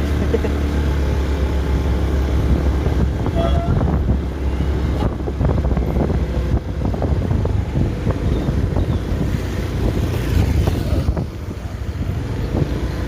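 Low, steady vehicle engine rumble with wind noise on the microphone, easing slightly near the end.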